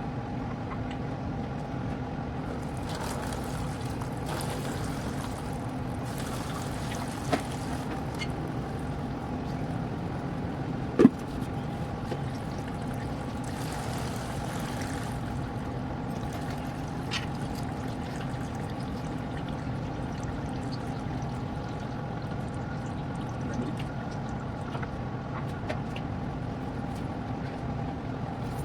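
A steady machine hum with several fixed pitches, overlaid by a few stretches of hiss and scattered sharp metallic clinks, one loud clink about eleven seconds in.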